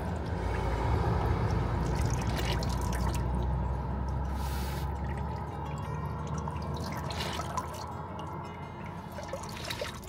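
Running water trickling and splashing, with a low rumble underneath that fades about halfway through.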